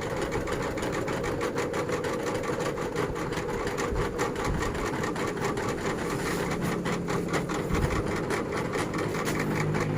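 EM200 computer embroidery machine stitching, a steady run of rapid, even needle strokes over a mechanical hum.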